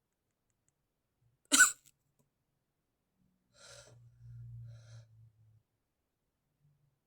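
A single short, sharp stifled sneeze about a second and a half in, followed a couple of seconds later by quieter breathy sounds over a low steady hum.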